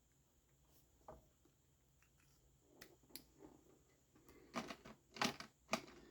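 A few faint clicks and taps from drawing pens being handled as the next colour is picked up and put down, more of them in the second half.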